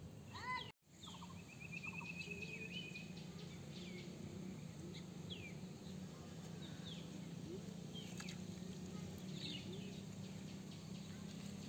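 Wild birds chirping outdoors: scattered short chirps and whistled glides, with a quick rapid trill about two seconds in, over a steady low hum. The sound drops out for an instant just under a second in.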